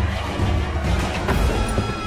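Television action-scene soundtrack: score music over a heavy low rumble, with a few sharp hits.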